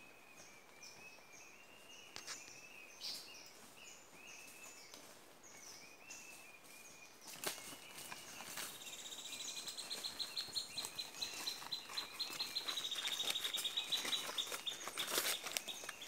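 Forest birds calling, with short high notes repeated over and over above a steady high whistle. About seven seconds in, footsteps crunching and rustling through leaf litter and undergrowth come closer and grow louder, while a fast pulsing trill goes on for several seconds.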